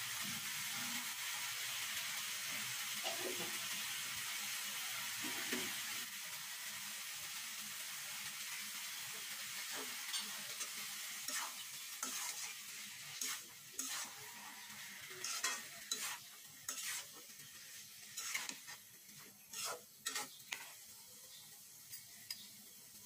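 Mango pieces sizzling in a black iron wok while a metal spoon stirs them. The hiss is steady at first, then eases off about six seconds in, and over the second half the spoon scrapes and knocks against the pan in a quick string of sharp strokes.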